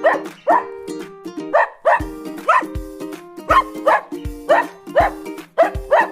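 A dog's bark repeating about twice a second, set in time over a music track, with a kick-drum beat coming in about two seconds in.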